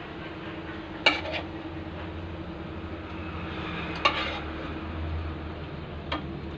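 Chopsticks and a spoon scraping and clinking against a metal wok while fried shallots are lifted out into a bowl: three sharp clinks, about a second in, about four seconds in with a short ring, and near the end, over a steady low hum.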